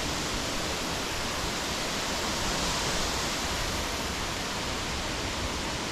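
Steady rush of falling water, an even unbroken roar.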